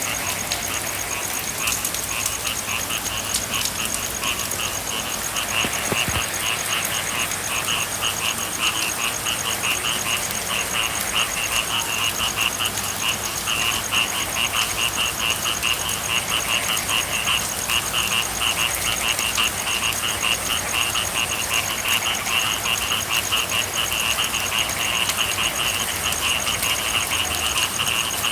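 A chorus of frogs calling in rapid, pulsing trills, the calling growing stronger after the first few seconds, over a steady patter of rain.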